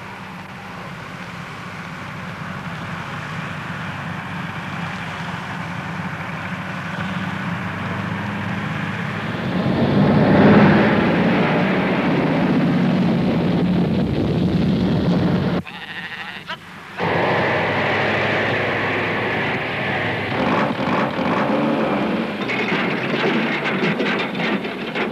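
Heavy lorry engine running, growing steadily louder until it is loud about ten seconds in. It cuts out suddenly for about a second and then comes back with more clattering site noise.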